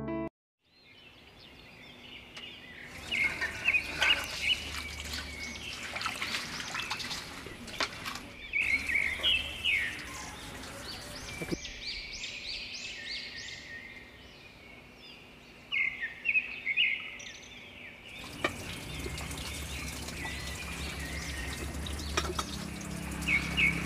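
Birds chirping in repeated short bursts, with clinks and splashes from dishes being washed by hand in water.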